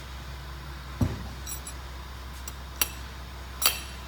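A dull thump on the workbench, then a few short, sharp metallic clinks of steel cylinder parts knocking together as the pneumatic cylinder is handled during assembly.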